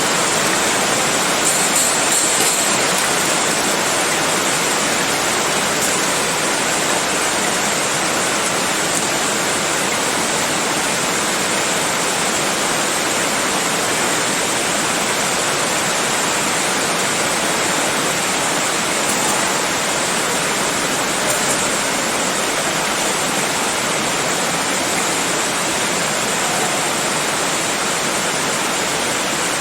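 A steady, even hiss with a thin high whine running through it, unchanging throughout, with no taps or clicks.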